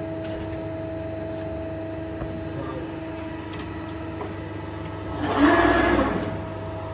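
Press brake running with a steady motor hum; about five seconds in, a louder surge of machine noise lasts about a second.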